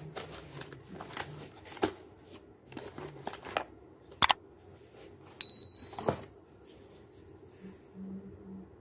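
Cardboard packaging being handled and opened: rustling and scraping of the box flaps with a few sharp taps, the sharpest about four seconds in. A short high beep sounds about five and a half seconds in.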